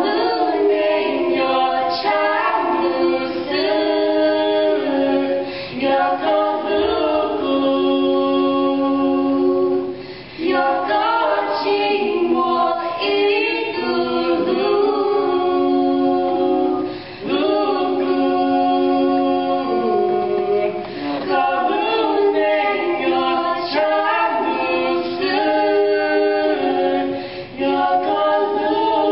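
Young women singing a Hmong song a cappella in close harmony, with several voices together and no accompaniment. The phrases break briefly for breath three times.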